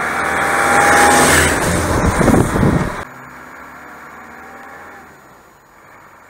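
Land Rover Defender driving toward and past, its engine and road noise getting louder through the first three seconds. It drops abruptly about three seconds in to a much quieter, steady engine sound that fades further near the end.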